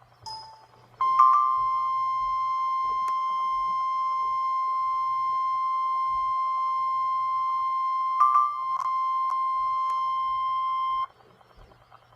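NOAA Weather Radio warning alarm tone: a single steady 1050 Hz beep held for about ten seconds, then cut off sharply. It signals that a warning broadcast follows, here a severe thunderstorm warning.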